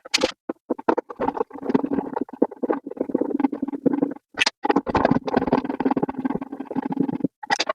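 Wood screw being turned into wood with a hand screwdriver: a rough, grinding rasp in a string of bursts, broken by short pauses between turns.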